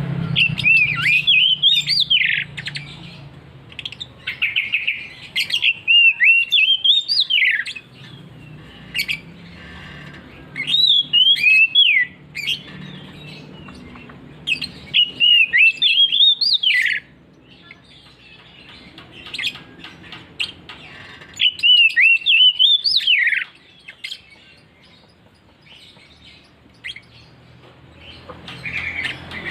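Oriental magpie-robin (kacer) in full, loud song: repeated phrases of quickly rising and falling notes, each a couple of seconds long, coming about every five seconds with quieter pauses between.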